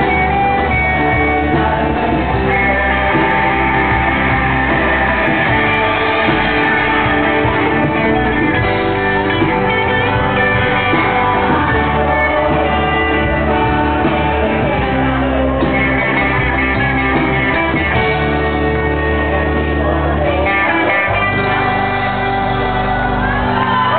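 Live rock band playing: guitars over a bass line, with singing and shouting.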